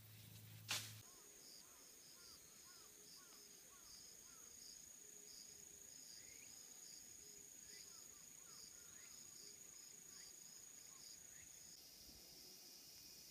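Faint insect song: a steady high-pitched drone with regular chirps pulsing beneath it, which stops near the end. A single sharp click about a second in.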